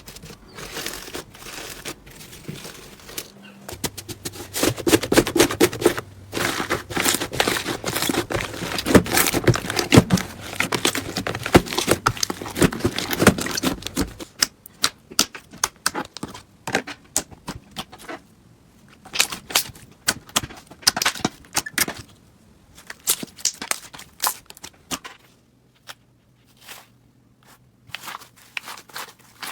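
Hands squeezing, stretching and poking slime, making dense crackling and many small sharp popping clicks. The crackling is thickest and loudest from about four to fourteen seconds in, then thins to scattered clicks with short gaps.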